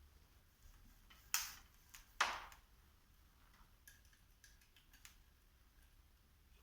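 Two sharp clinks or knocks a little under a second apart, each ringing out briefly, followed by a few faint clicks, from objects handled during work at a bench.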